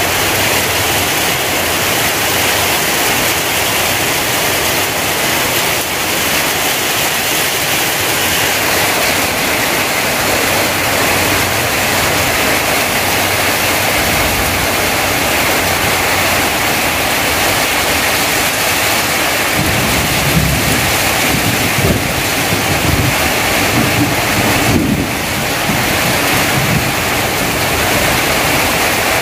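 Heavy rain pouring steadily onto tarpaulins and corrugated tin roofs and splashing into a flooded lane, a dense continuous hiss. A low rumble rises under the rain in the second half.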